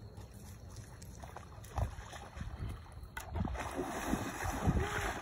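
Water splashing and sloshing as a Labrador retriever plunges into a river and swims out, growing louder about three seconds in, over a low wind rumble on the microphone.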